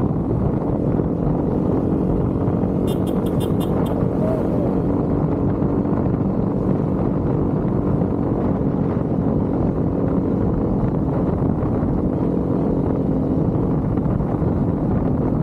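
Motorcycle engine running steadily while riding, with a dense rush of wind on the microphone. About three seconds in, a brief rapid high-pitched pulsing sounds for about a second.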